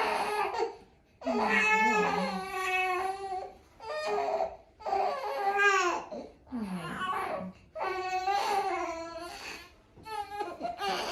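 An infant crying: about six high-pitched cries, each a second or two long, with short breaths between them.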